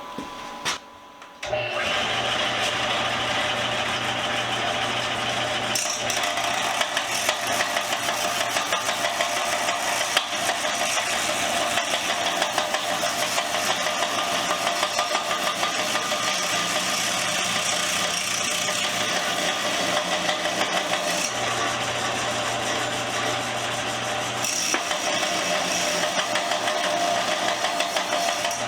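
Combination sander switched on about a second and a half in, then running steadily with a hum while a small metal vise body is ground against it to round off its cut edge.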